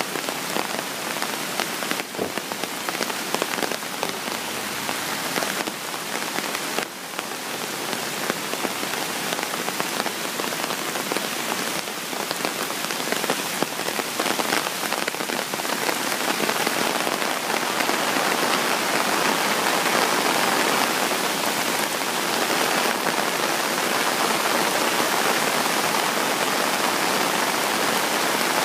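Heavy rain falling steadily, mixed with the rush of a muddy flooded stream pouring over rocks. The noise grows a little louder about halfway through.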